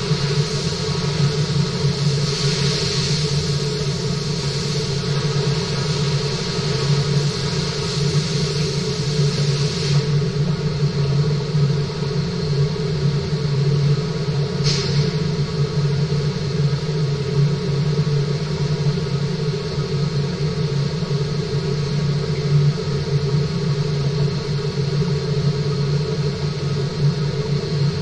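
Steady mechanical hum with a strong low drone and several fixed tones above it, under a hiss that eases off about ten seconds in; one short click about fifteen seconds in.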